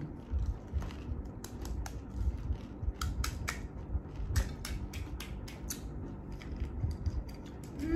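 Irregular crisp clicks and crackles of hollow golgappa (pani puri) shells being broken open and crunched, thickest in the middle stretch.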